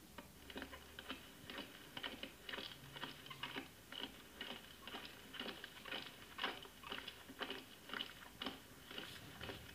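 Boots of a column of soldiers marching in step: an even tramp of about two footfalls a second.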